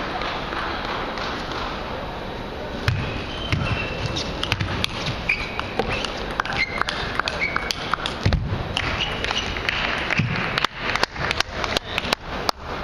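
Table tennis rally: the ball clicks sharply and irregularly off rackets and table. Near the end comes a run of quickening bounces, the ball bouncing lower and faster as it settles. Under it all runs the steady hum of a large hall with faint voices.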